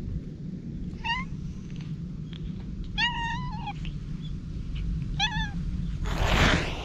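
Black stray cat meowing three times: a short meow, then a longer drawn-out one, then another short one. A brief rustling burst follows near the end.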